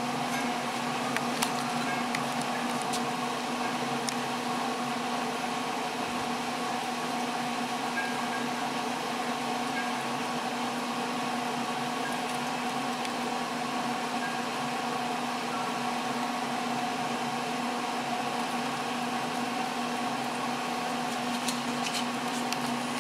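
Traeger pellet smoker's draft fan running, a steady electric hum with a few faint clicks.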